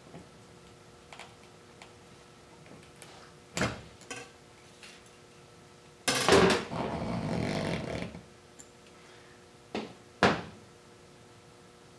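Light clicks and knocks of pliers and a windshield-removal tool handled on a car roof, with a louder scrape of about two seconds, six seconds in, as the cutting wire is drawn through the windshield's urethane.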